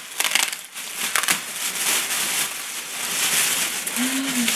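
Clear plastic packaging bag crinkling and rustling as it is handled around a leather backpack, with sharp crackles in the first second and a half, then a steadier rustle.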